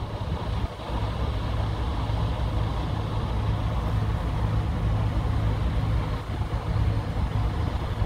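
The barge's diesel engine running with a steady low rumble as it passes through the raised lift bridge.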